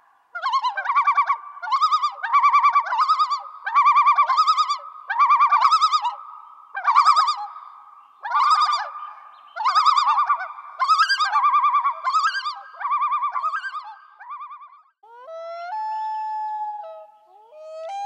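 An animal giving a quick series of short, warbling, high-pitched calls, roughly two a second. Near the end it gives a longer held call whose pitch slides up at the start.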